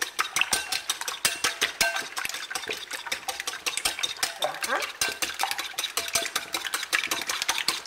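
Wire whisk beating three raw eggs in a glass bowl: rapid, continuous clicking of the metal wires against the glass.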